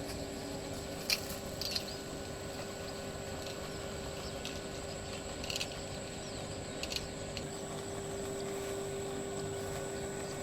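Faint steady hiss with a thin steady hum and a higher whine. About five short, high chirps or clicks rise above it at uneven intervals.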